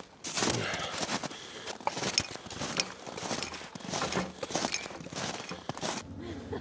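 Boots crunching through deep snow, step after step: post-holing on foot.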